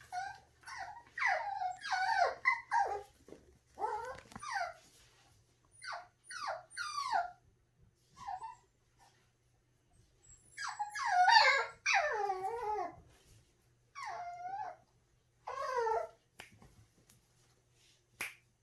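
Seven-week-old puppies whining and yelping in a string of high calls, many sliding down in pitch, in two clusters with a lull about halfway. A sharp click near the end.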